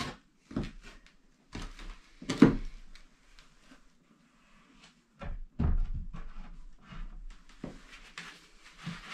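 Knocks and thuds as a heavy stone slab is handled onto a plywood stand and shifted into place. The clearest knock comes about two and a half seconds in, and a deeper thud comes near the middle.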